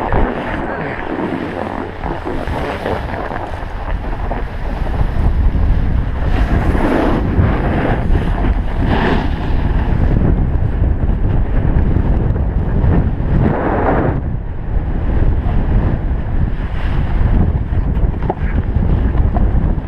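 Wind rushing over the camera microphone as a snowboard slides down a groomed run, with the board's edge scraping across the snow in several louder surges on the turns.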